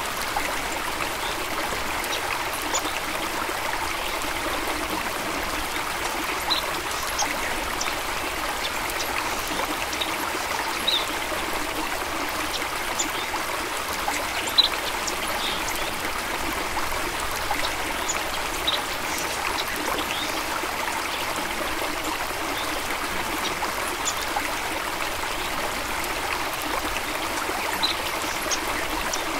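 A small stream running steadily over stones, with scattered brighter trickles and splashes, one louder splash about halfway through.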